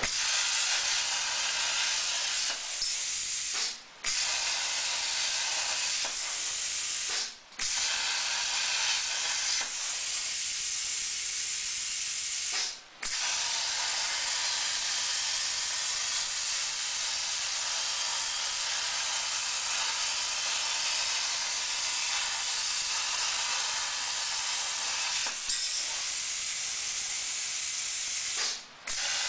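CNC plasma cutting torch cutting steel plate: a loud, steady hiss of the arc and air jet. It cuts out briefly four times and starts again each time.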